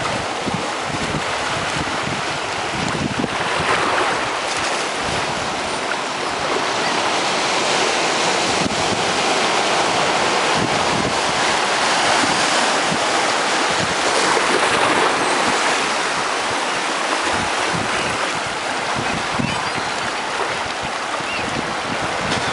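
Steady rush of surf breaking and washing around rocks, swelling and easing a little, with wind buffeting the microphone.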